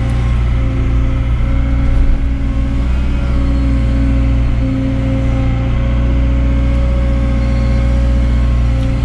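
Cat excavator's diesel engine and hydraulics running under load inside the cab as the bucket digs into a pile and lifts a load of material: a steady drone with a whine over it.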